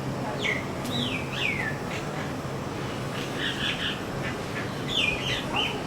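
Common myna calling: a few whistles sliding downward in pitch in the first two seconds, then clusters of short, rough notes in the middle and again near the end.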